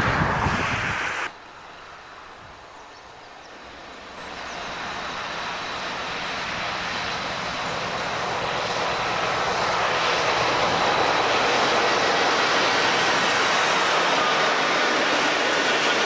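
Wind buffeting the microphone cuts off abruptly about a second in. Then a Class 60 diesel locomotive hauling a loaded coal hopper train approaches and passes close by: its engine's drone builds steadily from about four seconds in and holds loud as the locomotive goes past.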